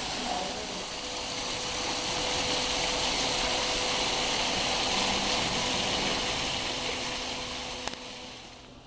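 Water from a small artificial waterfall splashing steadily down rockwork, a hissing rush that swells in the middle and fades away near the end, over a faint steady hum.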